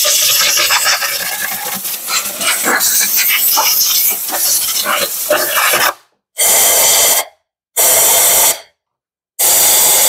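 Compressed-air blow gun blasting dust out of engine spark plug wells: a loud continuous hiss for about six seconds, then three short blasts.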